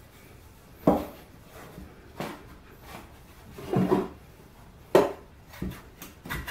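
A wooden board is set down and shifted on a wooden workbench, then a bar clamp is put against it. The result is several separate wooden knocks and clatters, the loudest about a second in and again near five seconds.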